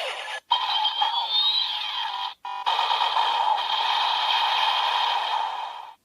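Electronic finishing-attack sound effect from a Kamen Rider Zero-One DX Attache Shotgun toy's speaker, following its Shining Hopper "Kaban Shoot" call: a dense synthesized blast with sweeping pitch glides and two brief breaks. It cuts off suddenly near the end.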